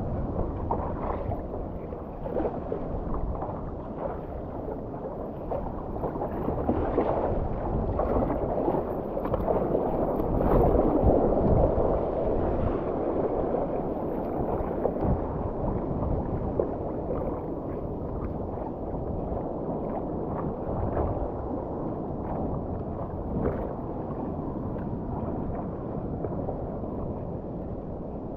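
Ocean water sloshing and splashing around a stand-up paddleboard as it is paddled, with the paddle dipping in now and then; a steady wash that swells louder about ten seconds in.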